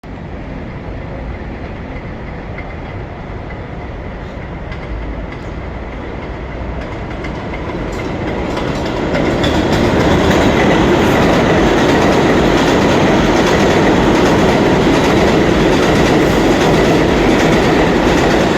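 New York City Subway R142A train running past at speed, its wheels and track noise growing louder over the first ten seconds or so as it approaches, then staying loud and steady as the cars go by.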